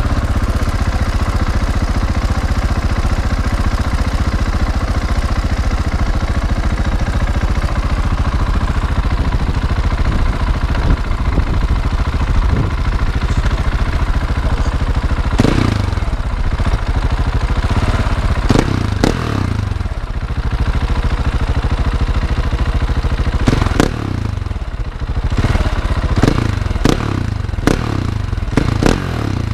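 Husqvarna 701's single-cylinder engine idling through an Akrapovic exhaust with modified internals. From about halfway on it is revved in several short throttle blips that rise and fall quickly, with a cluster of them near the end.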